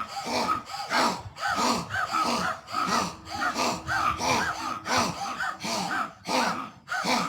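Repeated forceful breaths pushed out through the open mouth with the tongue stretched out and flattened, a pranayama for clearing mucus from the throat and nasal passages. They come as a steady series of short, throaty 'haa' huffs, about two a second.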